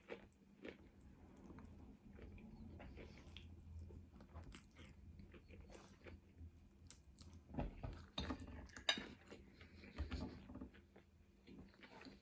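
A person chewing and biting food close to the microphone: faint, irregular wet clicks and crunches, busier and louder for a couple of seconds past the middle.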